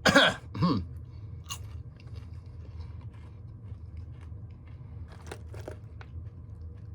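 Scorpion-pepper candied popcorn being chewed: faint, irregular crunches and mouth clicks. A short voiced sound comes right at the start.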